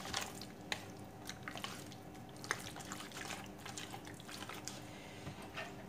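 Hands squeezing and turning raw chicken pieces in a plastic tub to work in the seasoning, with irregular wet squelches and small clicks.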